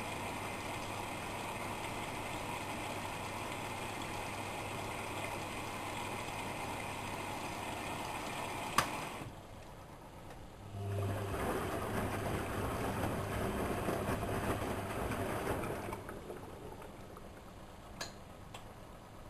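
Whirlpool washing machine running a wash cycle: the drum turns with a motor hum and water sloshing. After a sharp click about nine seconds in it stops for a couple of seconds, then turns again, typical of the drum reversing direction. The sound drops away near the end, followed by a couple of faint clicks.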